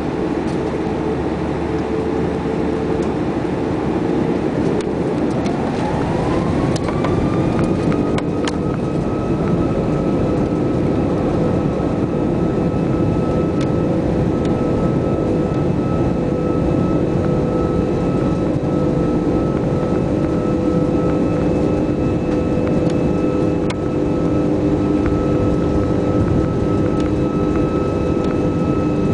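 Airbus A340-600's Rolls-Royce Trent 500 turbofans heard from the cabin over the wing, spooling up to takeoff thrust. About five seconds in, a whine rises and then holds as a steady high tone over a loud, steady rumble, as the takeoff roll gets under way.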